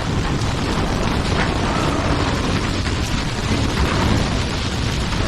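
Tornado wind: a steady, deep rumbling roar with a constant rushing hiss over it.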